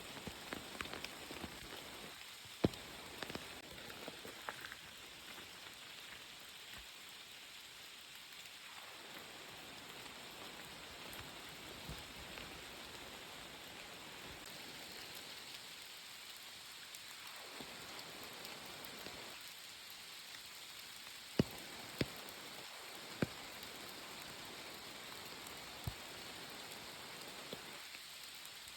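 Rain falling steadily: an even hiss, with a few sharp drop-like clicks standing out, the loudest about two-thirds of the way through.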